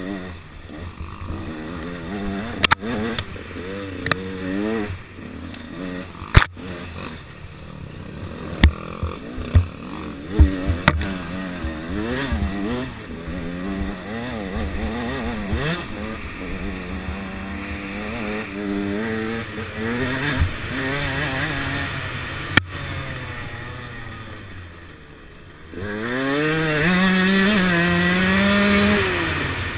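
Enduro dirt bike engine revving up and down over and over as the bike is ridden along a rough trail, with several sharp knocks from the bike hitting bumps. Near the end it drops off briefly, then pulls louder and rises in pitch as it accelerates.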